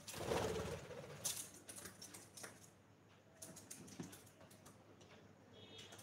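Cockatiels moving about on a cardboard birdhouse: a short rough rustling burst in the first second, then scattered clicks and scratches, with a brief faint chirp near the end.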